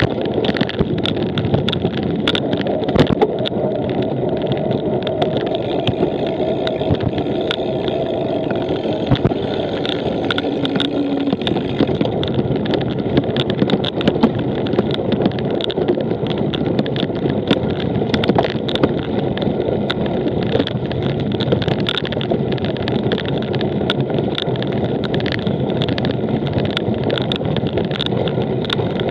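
Cyclocross bike ridden hard over rough ground: a steady rumble of tyres with constant small rattling clicks and knocks from the bike.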